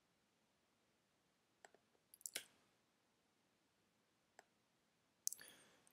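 Near silence with a few faint computer-mouse clicks, the loudest pair about two seconds in, and a brief soft noise near the end.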